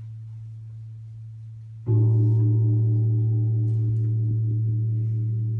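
A deep gong struck once about two seconds in, its low tone ringing on with a slow decay and a pulsing overtone. Before the strike, the fading hum of an earlier stroke is still sounding.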